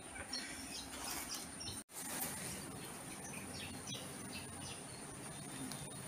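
Faint outdoor background of birds chirping here and there over a steady high insect buzz, with a brief dropout about two seconds in.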